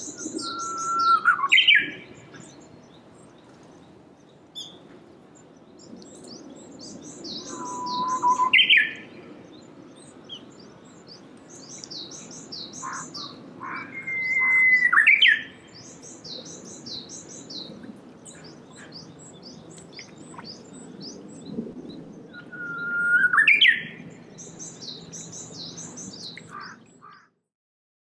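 Japanese bush warbler (uguisu) singing its 'hoh-hokekyo' song four times, each a held whistle ending in a quick rising flourish. Faster high chirping runs behind it, and the sound cuts off suddenly near the end.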